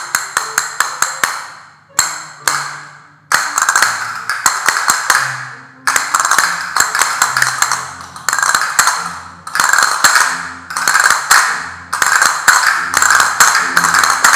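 Several pairs of castanets played together in short rhythmic phrases: quick runs of clicks, each phrase about one and a half to two seconds long, with brief gaps between them.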